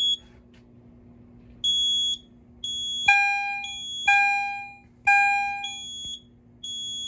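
Fire alarm chime strobe sounding in alarm after a smoke detector has tripped the panel. From about three seconds in, a ringing chime tone strikes three times a second apart and then pauses, the code-3 temporal pattern. A separate short, high-pitched electronic beep repeats about once a second from about one and a half seconds in.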